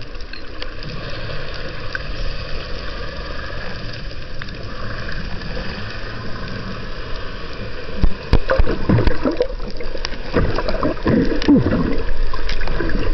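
Underwater ambience: a steady hiss and low rumble, then from about eight seconds in, louder gurgling bursts of bubbles that come and go.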